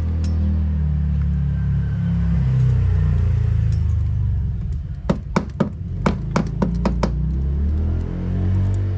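Background music with a steady low bass line. About halfway through comes a quick run of about ten sharp clicks, roughly five a second, lasting about two seconds.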